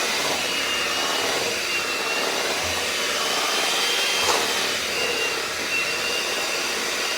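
Electric mixer running steadily as it beats cake batter, a high motor whine that sags slightly now and then under the load, with one brief knock a little past halfway.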